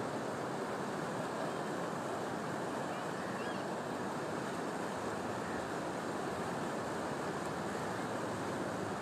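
Steady rushing of muddy floodwater pouring down a wide seasonal stream in spate, carrying brushwood and debris.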